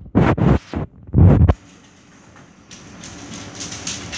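Thunderstorm: a few loud, sudden claps and rumbles of thunder in the first second and a half. Then a steady hiss of rain builds up near the end.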